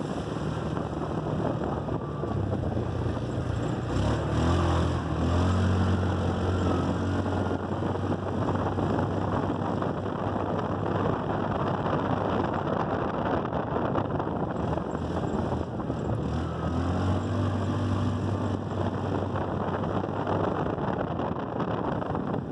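Yamaha Rhino 450 side-by-side's single-cylinder engine running as it drives along a dirt trail, climbing in pitch under throttle about four seconds in and again about seventeen seconds in. Steady wind and tyre noise run underneath.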